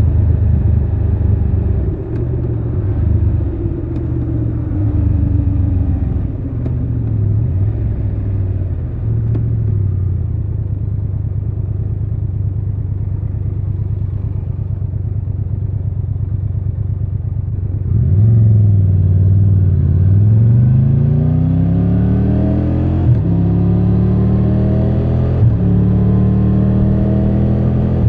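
Triumph Tiger 1200 Rally Pro's three-cylinder engine slowing with engine pitch falling through downshifts, then running low and steady. About two-thirds of the way in, it pulls away hard, the pitch climbing in three rising sweeps with brief breaks at two upshifts.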